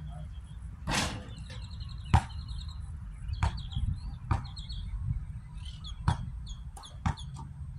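Basketball shot reaching the hoop with a short noisy burst about a second in, then the ball bouncing on the hard court: one loud bounce about two seconds in and several scattered bounces after it. Birds chirp, and there is a wind rumble on the microphone.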